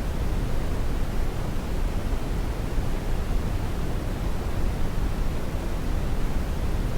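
Continuous synthetic white noise of the kind played as a baby sleep aid, steady and unchanging, with most of its weight in the low end, a deep hiss rather than a bright one.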